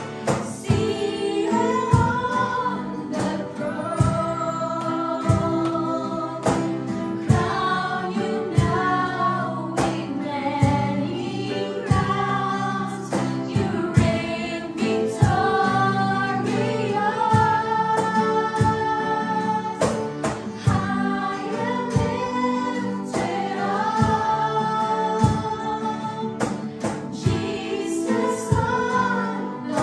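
A song: a sung melody with several voices over instruments and a steady drum beat.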